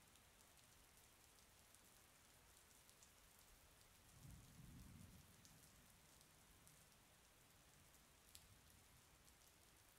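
Very faint rain: a steady hiss with scattered tiny drop ticks, and a brief low rumble about four seconds in.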